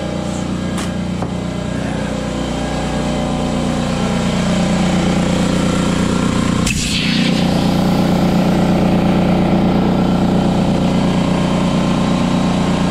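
Husky electric air compressor running with a steady hum, and a brief hiss about halfway through.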